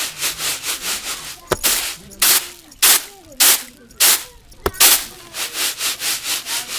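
Stiff hard broom sweeping rough concrete: quick scratchy strokes, about four a second, with a run of harder, louder strokes in the middle.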